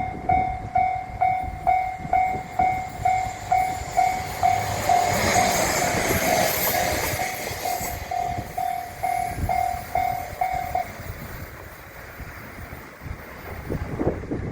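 Japanese level-crossing warning bell dinging steadily about twice a second while a train passes. The train's noise swells and fades between about 5 and 8 seconds in. The bell stops about 11 seconds in.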